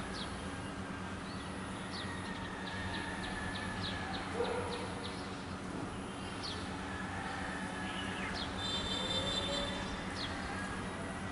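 Steady low mechanical hum with many short, high chirps of small birds scattered over it and a brief trill about nine seconds in.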